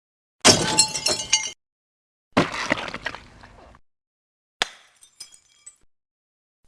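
'Pack destruct' breaking sound effect: three separate shattering crashes about two seconds apart, full of short ringing clinks. The last is a single sharp crack followed by a scatter of small high tinkles.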